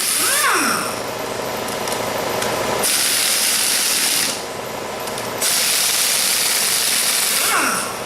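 A power tool runs in bursts on an engine being torn down, each burst ending in a falling whine as it spins down. Under it is a steady hiss of rain drumming on a metal shop roof.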